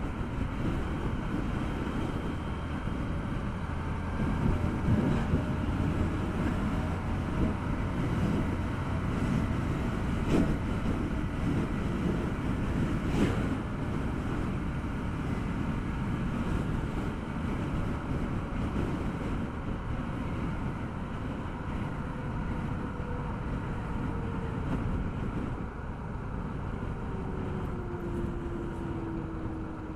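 Wind buffeting the microphone on a moving motorcycle, over the bike's engine and tyre noise on a concrete road, with a couple of brief knocks partway through. Near the end the engine note falls as the bike slows.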